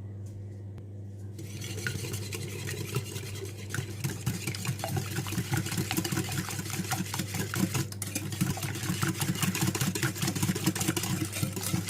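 Whisk beating eggs and sugar together in a bowl: rapid, continuous clicking and scraping strokes that start about a second in.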